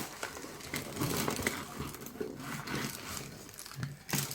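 Plastic packaging crinkling and rustling as a sealed, plastic-wrapped device is handled, with a sharp click near the end.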